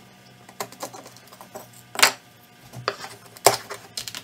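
Putty knife blade scraping and knocking as it is worked under a hide-glued poplar frame board to pry it loose. There are irregular sharp clicks and knocks, the loudest about two seconds in and again about three and a half seconds in. The board is still well bonded.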